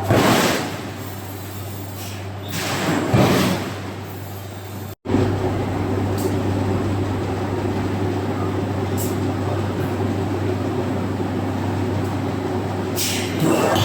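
Forging-shop machinery running with a steady hum, broken by loud hissing rushes right at the start, about three seconds in, and near the end. The sound cuts out for an instant about five seconds in.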